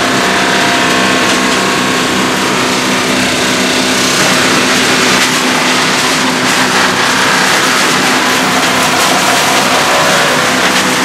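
Lane LB-2500 tub grinder running, its John Deere 325 hp diesel engine giving a steady hum under a dense, loud crackling hiss from the hammermill grinding wood, with scattered knocks that come more often in the second half.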